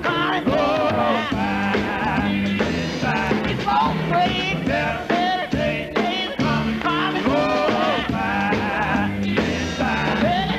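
Gospel quartet singing in harmony with instrumental backing, a steady beat and bass line under the voices.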